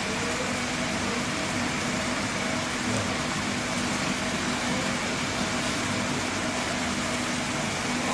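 A steady mechanical hum under an even hiss, unchanging throughout, like a motor or pump running continuously.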